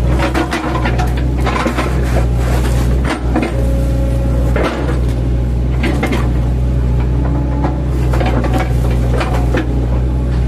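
Mini excavator's diesel engine running steadily under load, with irregular sharp knocks and clattering as the bucket chops felled oil palm trunks into chips.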